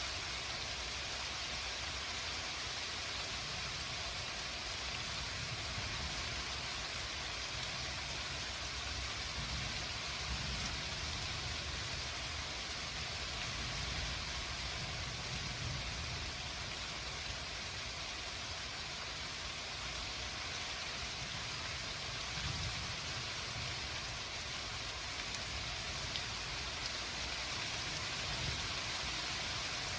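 Steady rain falling in a thunderstorm: an even hiss, with a low rumble underneath that swells and fades.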